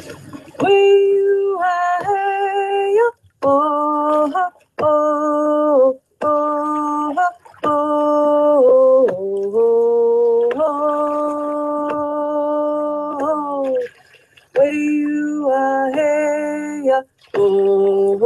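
A woman singing unaccompanied, a song about orcas in her native language. It comes in short phrases of held, steady notes with brief pauses between them, and one longer note held for about three seconds midway.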